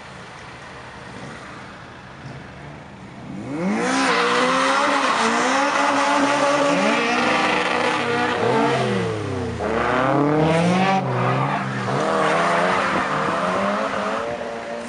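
A car engine is revved hard from about three seconds in, its pitch rising and falling over and over, along with tyre noise as the car slides on the wet gravel surface. It eases off near the end.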